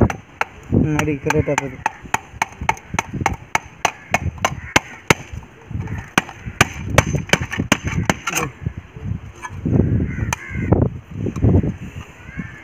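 A chisel being struck to cut through the tin-plate lid of a can: rapid sharp metallic knocks, about three or four a second, that stop about eight seconds in, with a few scattered knocks after.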